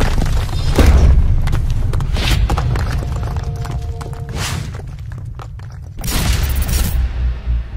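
Logo intro sting: music with deep booming hits and several rushing whooshes, the loudest about a second in and a longer one near the end.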